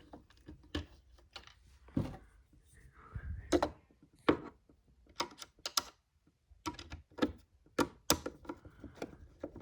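Hand screwdriver turning a screw into the radio's back cover: a string of irregular sharp clicks and scrapes as the screw is driven in.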